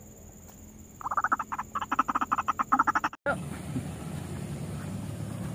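White-breasted waterhen calling: a rapid, harsh train of repeated pulses lasting about two seconds, starting a second in and then cutting off abruptly. A steady rushing noise follows.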